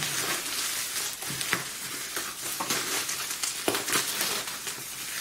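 Plastic bubble wrap crinkling and crackling as it is cut with scissors and pulled open by hand, a dense, irregular rustle with small snaps throughout.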